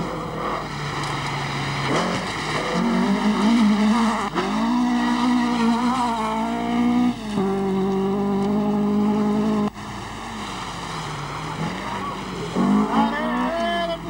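Rally car engines revving hard under load, their note climbing and falling through the gears. The sound drops off abruptly about ten seconds in, then the revs build again near the end.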